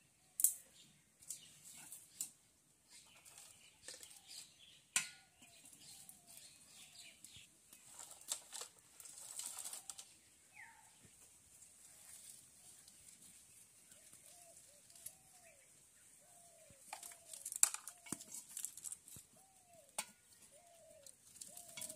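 Dry firewood sticks cracking and knocking together as they are snapped and pushed into a clay cooking stove, a few sharp cracks standing out. A bird calls in short, repeated notes throughout, most often toward the end.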